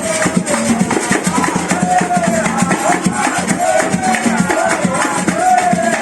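Live procession music: drums and shakers keep a steady beat under a held, wavering melody.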